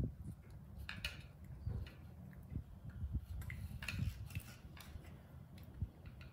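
Baby monkey eating yogurt: scattered small clicks and scrapes of a spoon against a plastic yogurt cup and plate, with soft knocks and handling thumps.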